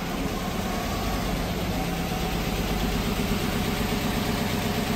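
1971 VW Westfalia bus's air-cooled flat-four engine idling steadily.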